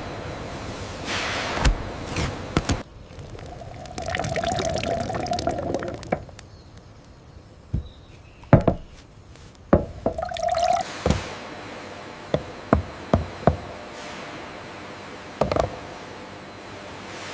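Liquid pouring and dripping, with a steady filling tone at times, among a series of sharp knocks and clicks.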